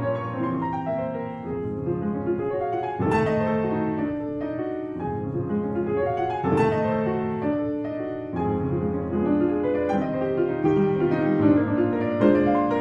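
Background piano music: held notes and chords, with fresh chords struck about three, six and a half, and eight seconds in.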